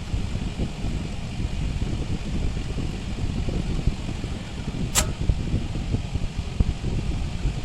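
Steady low rumbling noise with a single sharp click about five seconds in.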